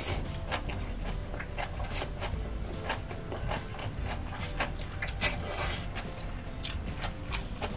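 Close-miked eating: chewy noodles slurped into the mouth and chewed, with many small wet mouth clicks and a longer slurp about five seconds in.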